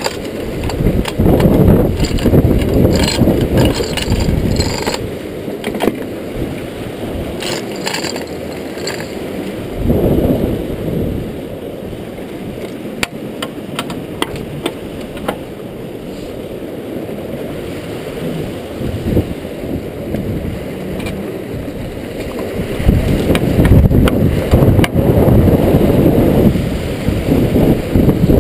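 Rushing river water churning through a rotary screw fish trap, with the hoist chain clinking and rattling in the first few seconds. Wind buffets the microphone near the end.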